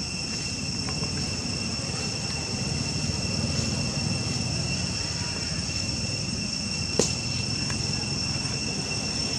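Steady high-pitched drone of insects over a low rumble, with a single sharp click about seven seconds in.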